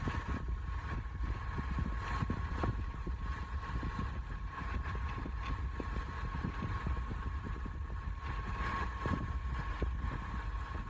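Wood lathe running steadily with a hum, with many light irregular clicks and knocks over it.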